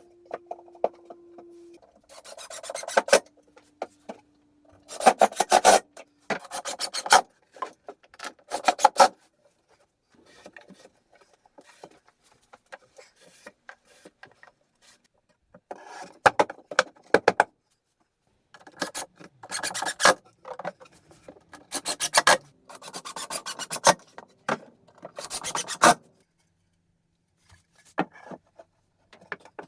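Rasping, rubbing strokes of an abrasive tool on plywood, coming in about nine short bursts with a quiet stretch in the middle.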